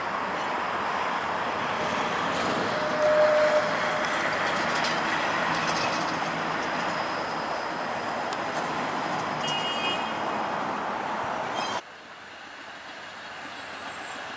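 TTC Flexity Outlook streetcar running around a turning loop, a steady rushing noise with a brief tone about three seconds in. The sound drops off suddenly near the end, leaving a quieter, fainter hum.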